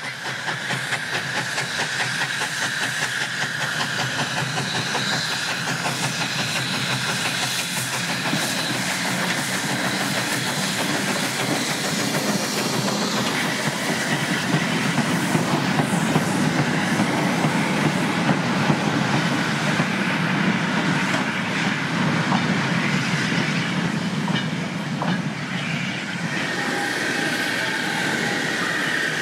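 1888 LNWR 'Coal Tank' 0-6-2 tank steam locomotive working with a short train: steam hiss and wheels clattering over the rail joints. A high steady squeal comes in near the end.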